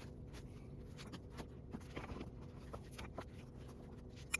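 Faint scattered clicks and taps from hand work on a golf cart tire and rim, with a sharper click near the end, over a low steady hum.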